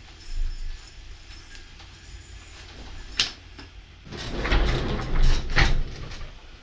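Bimetal aluminium-and-stainless yo-yo being played on its string, with a faint hiss through a trick. A single sharp smack about three seconds in as the yo-yo is caught in the palm. Then louder rustling and handling noise as it is carried up to the microphone.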